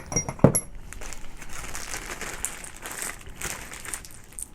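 Small metal screws clinking together a few times, then a plastic packet crinkling and rustling as the hardware is handled.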